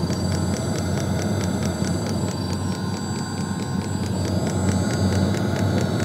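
Diesel heater running with a steady low rumble from its burner, exhaust through a silencer. Its fuel dosing pump ticks evenly a few times a second as the heater fuels up toward full output.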